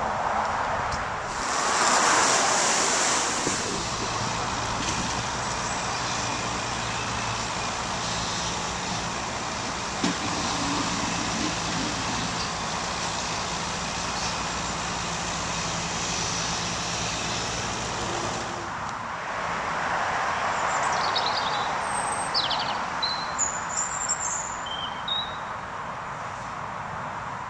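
Diesel engines of a mini excavator and site dumper running with a steady low hum. A rushing noise comes before it and again about twenty seconds in, and a few short bird chirps come near the end.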